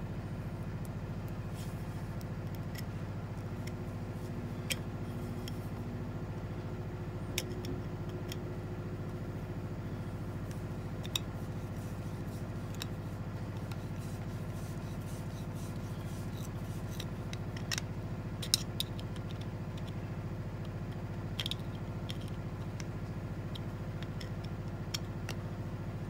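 Screwdriver working a screw into a Thompson Center percussion muzzle-loader lock, giving a few scattered small metal clicks and taps over a steady low hum.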